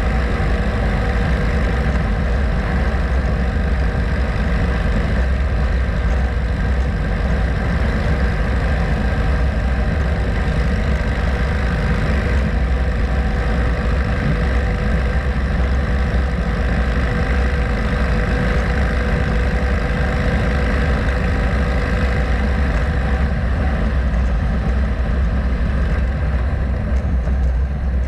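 Harley-Davidson Road Glide's V-twin engine running steadily at highway cruising speed, mixed with wind and tyre noise on the pavement.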